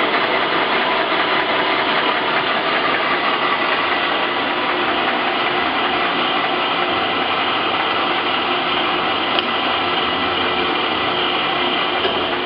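Howa Sangyo Model 1000 engine lathe running under power, its geared headstock and feed drive making a steady whirring gear whine, with a single click about nine seconds in.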